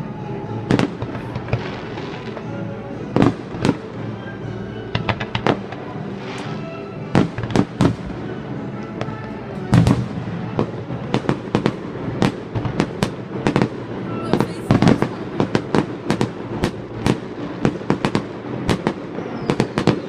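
Aerial fireworks bursting in a display: a steady run of sharp bangs and pops that comes faster and denser from about halfway through.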